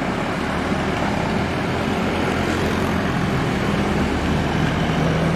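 Diesel engine of a large intercity coach running steadily as the bus drives slowly past at close range and pulls away.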